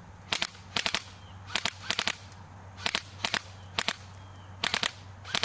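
Airsoft electric rifle (AEG) shooting at an Asus Eee PC netbook: sharp clicks in quick groups of two or three, about nine groups, roughly every half second to a second.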